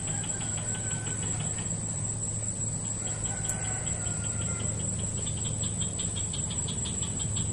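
Insects chirping: a steady high-pitched whine together with a rapid pulsing chirp of about five pulses a second that grows louder near the end, over a low steady hum.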